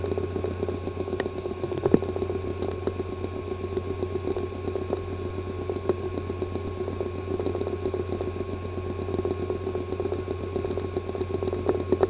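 Hard drive with a physically damaged disk assembly running: a steady buzzing hum with rapid, irregular ticking and rattling. The noise is the symptom of physical damage inside the drive's disk assembly.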